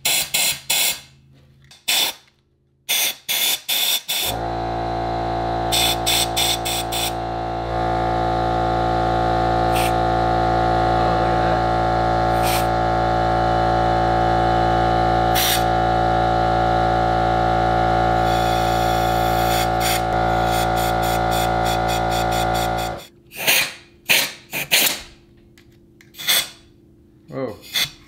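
Short blasts of compressed air from a blow gun fired into a Webasto Air Top 2000 STC heater to blow carbon soot out of it. About four seconds in, an air compressor starts and runs steadily, with more air blasts over it, then cuts off suddenly about 23 seconds in, followed by a few more short blasts.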